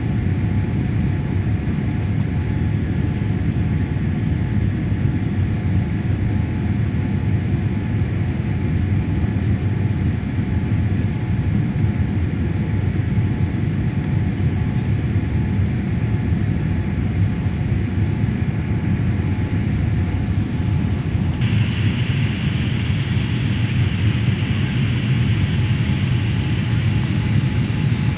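Steady roar of a Boeing 787-8 in flight after takeoff, jet engine and airflow noise heard inside the cabin. About three-quarters of the way through, the sound changes abruptly, duller at the very top and brighter in the middle.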